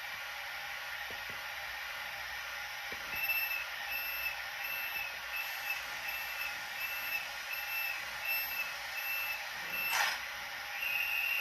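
Door-closing warning beeps from the sound decoder of a Minitrix N-scale ICE1 model train, played through its small speaker over a steady hiss: evenly spaced high beeps, about one and a half a second, signalling the doors closing before departure. About ten seconds in a sharp click cuts them off, and a steady high tone follows.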